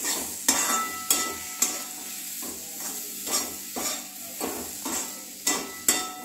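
Spatula scraping and stirring diced white radish, tomato and spices around a kadhai, in repeated irregular strokes about one or two a second, with the food sizzling lightly underneath.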